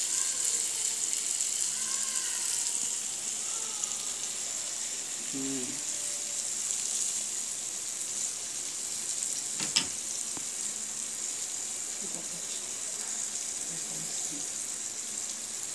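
Flour-dredged galunggong (round scad) frying in hot oil in a pan, a steady sizzle; the flour coating keeps the oil from spattering much. A single sharp click about ten seconds in.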